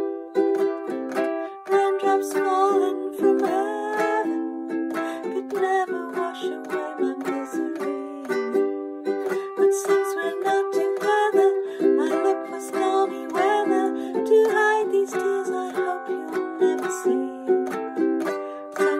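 Ukulele strummed in a steady chord rhythm in G major, with a woman singing the melody over it.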